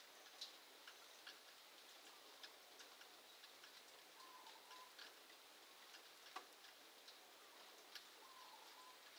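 Near silence: faint outdoor background with scattered light ticks and two faint short calls, about four seconds in and near the end.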